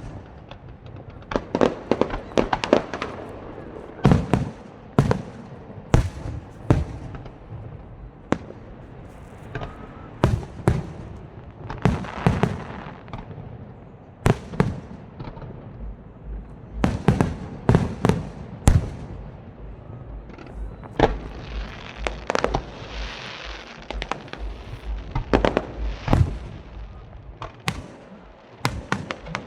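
Aerial fireworks show: shells bursting in sharp bangs at irregular spacing, some in quick runs of several, with a stretch of steady hissing crackle about two-thirds of the way through.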